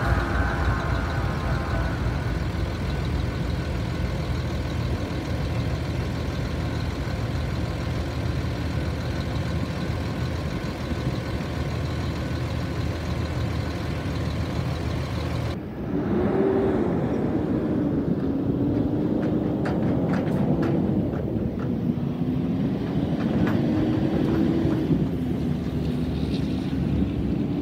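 Steady low rumble of heavy traffic at a railroad crossing, a semi truck's engine among it, with ringing near the start that stops as the crossing gates rise. About halfway through the sound changes suddenly to wind on the microphone with a faint wavering hum.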